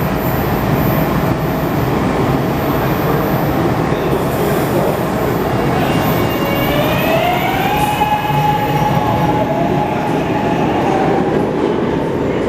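Adtranz M-4 subway train of SEPTA's Market-Frankford Line pulling out of an underground station: a steady rumble of wheels on rail. About halfway through, a rising whine from the propulsion motors as the train accelerates levels off and holds for a few seconds before fading.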